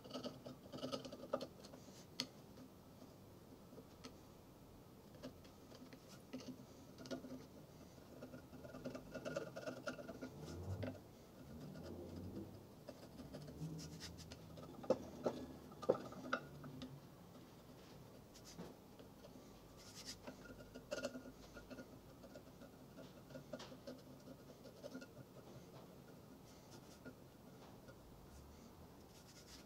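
Chisel scraping torch-softened paint off a small engine's base: faint, irregular scratching with scattered light clicks.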